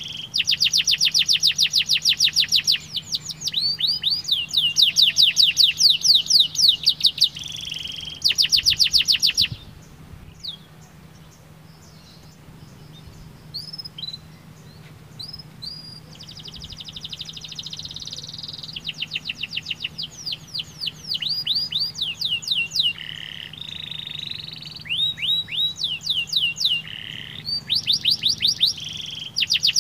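Domestic canary singing: long runs of fast trills, each a rapid string of short sweeping notes, rolling one after another. About a third of the way through the trills break off into a few scattered single notes for several seconds, then the trilling song resumes.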